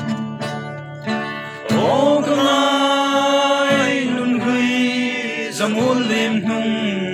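A group of young men singing together in long held notes, accompanied by a strummed acoustic guitar.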